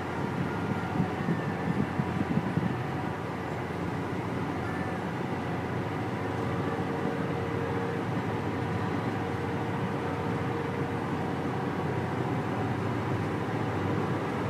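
Car driving at road speed: steady road and engine noise, with a rougher low rumble in the first few seconds.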